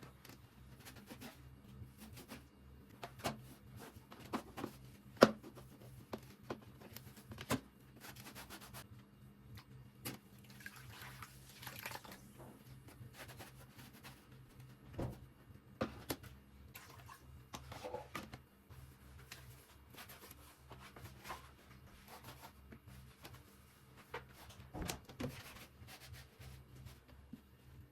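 Kitchen handling sounds: scattered clicks and knocks of objects being set down and moved, the sharpest about five seconds in, with a few seconds of rushing noise near the middle over a steady low hum.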